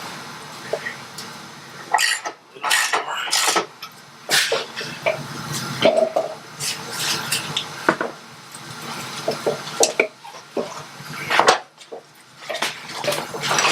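Metal parts and tools clinking and knocking against each other at irregular moments, mixed with short rubbing and scraping noises, as motorcycle rear-wheel parts are handled and wiped clean.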